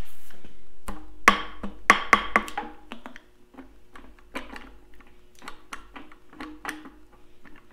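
Metal knocks and clicks as the governor is worked loose from a Farmall Super M engine block, with some ringing. A quick run of loud knocks comes about a second in, followed by sparser, quieter clicks.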